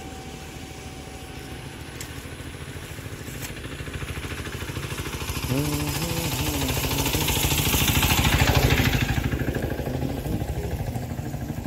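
Small engine running steadily with a fast, even chugging, driving a jute fibre-stripping machine. About halfway through, a rushing, splashing noise builds as retted jute stalks are run through the machine and whip through the water; it is loudest about three-quarters of the way in, then eases.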